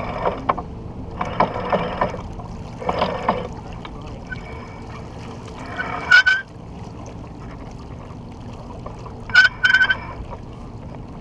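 Steady wind and water noise of a sailboat under way, with brief bursts of voices early on and short honk-like calls about six seconds in and twice more near the end.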